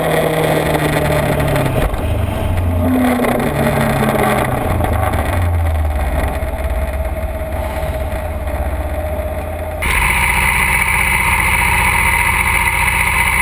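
Motorcycle engine revving up and falling back through the gears while riding, with wind rushing over the microphone. About ten seconds in, it cuts abruptly to a different, steadier sound.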